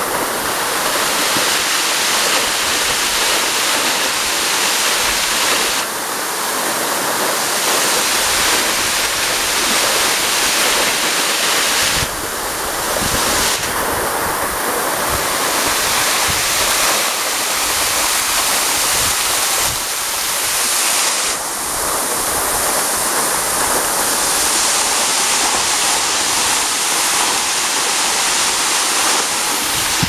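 A waterfall cascading down a rock face: a loud, steady rush of falling water.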